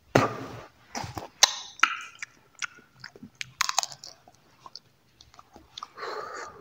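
Close-miked chewing and crunching of dry fruit, with sharp crunches and wet mouth clicks. There is a breathy rush of air just after the start and another near the end.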